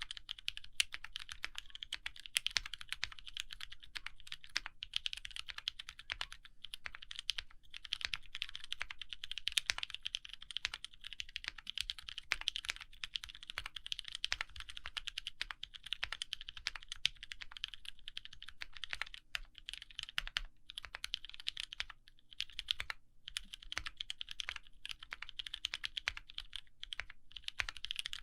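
Continuous fast typing on a gasket-mount mechanical keyboard with lubed Outemu Sky switches on an FR4 plate, under GMK keycaps: a dense stream of key clicks with a few short pauses.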